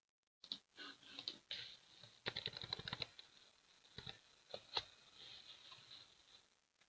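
Hands handling a trading-card box and its packaging: scattered light clicks, taps and crinkling, with a quick run of clicks about two seconds in.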